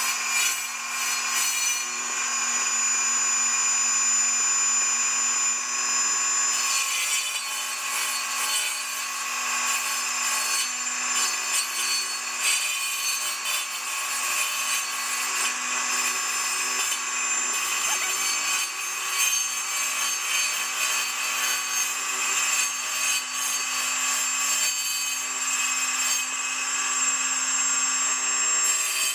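A circular saw blade on a homemade wooden-table saw runs with a steady whine and cuts a row of cross kerfs into a wooden plank.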